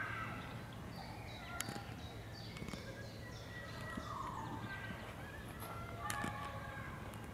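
Mallard ducklings peeping: many short, high, falling notes in quick succession.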